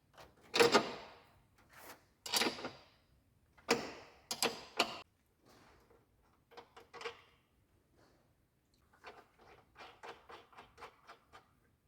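Sharp metallic knocks and clicks of hand tools on a strut top mount nut as it is undone and handled, loudest in the first few seconds, followed by quicker runs of small clicks later on.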